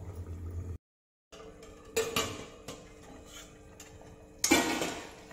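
Metal spatula clinking and clattering against an aluminium kadhai as potatoes are stirred, with sharp clinks about two seconds in and a louder clatter near the end. The sound drops out completely for a moment about a second in.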